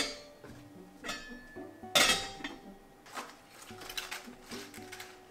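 Kitchenware clinking: utensils and dishes knocking against each other, with a sharp ringing clink about a second in, a louder one about two seconds in, and smaller knocks after.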